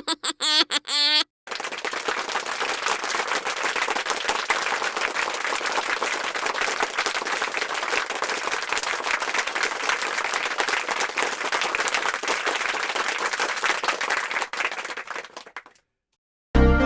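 Audience applause: dense, steady clapping for about fourteen seconds that fades out near the end. A brief snatch of a voice comes just before it.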